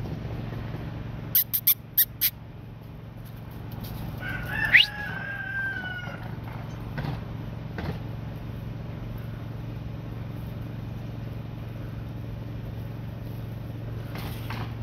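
An animal call: one long, high-pitched cry about five seconds in that starts with a quick upward sweep and then holds, falling slightly. Before it come about five sharp clicks in quick succession, all over a steady low hum.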